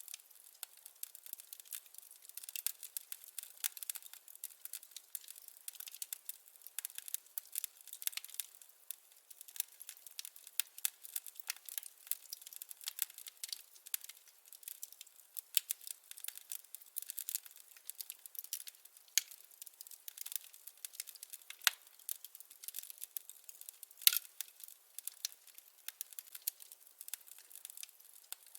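Wood fire burning in a fireplace: a steady stream of small crackles and sharp pops from the burning firewood, with a louder pop about 24 seconds in.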